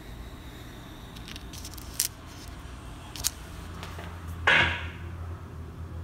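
A few faint, sharp clicks from small brass 3D-printer nozzles being handled as one is picked up, over a steady low hum, with a short hiss about four and a half seconds in.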